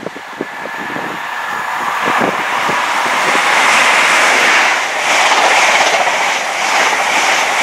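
Diesel passenger train passing at speed close by. The rush of wheel and air noise builds over the first two seconds and then stays loud as the carriages go past, with a few sharp knocks of wind on the microphone near the start.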